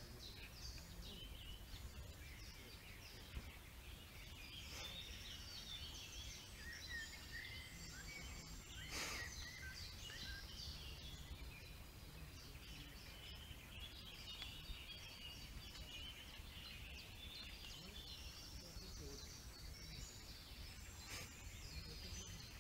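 Faint outdoor birdsong: many short, high chirps from small birds throughout, over a low steady rumble, with a sharp click about nine seconds in.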